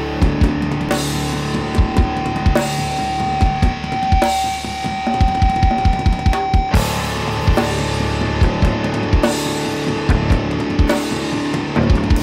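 Rock band music: a drum kit with frequent bass-drum hits and snare under guitar, with a held note that cuts off about seven seconds in.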